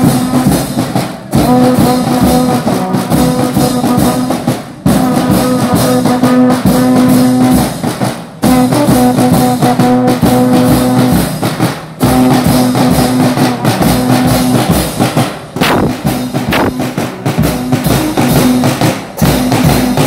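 Marching band playing: brass horns and trumpets hold long notes over snare and bass drums and cymbals, the phrases breaking off briefly every three to four seconds.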